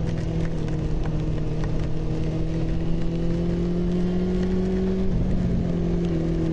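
Honda CB400 inline-four engine running under way at a steady speed, its note climbing slowly, with a brief dip and recovery about five seconds in, over a rush of wind noise.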